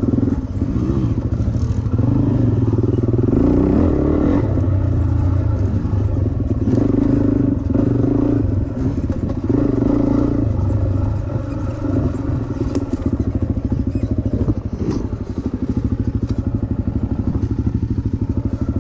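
Suzuki dirt bike engine heard from the rider's own bike on a trail ride, revving up and down with the throttle, with a few knocks from the bike over the ground, then settling into a steady idle in the last few seconds as the bike stops.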